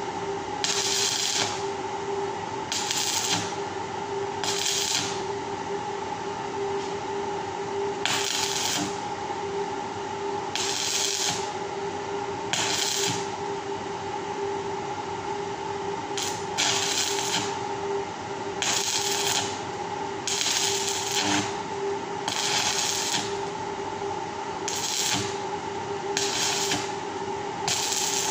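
Electric arc welding on a round steel-wire grill grate: a series of short welds, each under a second, struck every one to two seconds as the wires are joined, over a steady hum.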